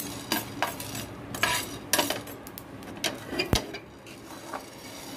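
A steel spoon scraping and clinking on a flat tawa griddle as it stirs black peppercorns and kalonji seeds being dry-roasted. The strokes come irregularly, with one sharper knock about three and a half seconds in.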